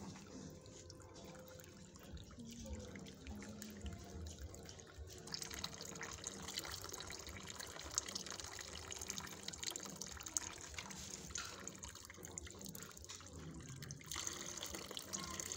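Water poured from a kettle over long twisted braids, trickling and splashing off the braid ends into a plastic bucket. The run of water gets stronger about five seconds in and again near the end.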